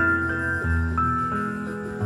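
Background music: a slow, gentle melody of bell-like mallet or keyboard notes over a sustained bass.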